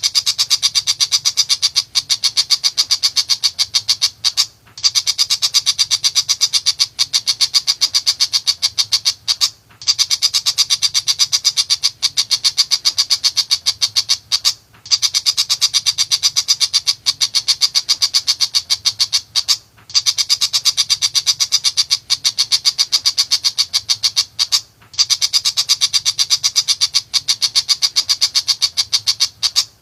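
Tiger shrike (pentet macan) singing a fast, harsh chatter of short repeated notes, about nine a second, in bouts of about five seconds broken by short pauses.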